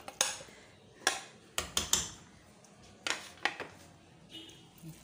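Metal spoon and perforated skimmer clinking and scraping against a plate and a cooking pot as shredded beef is tipped in and turned over. Sharp clinks come in short clusters: one near the start, a few around a second and two seconds in, and more around three seconds in.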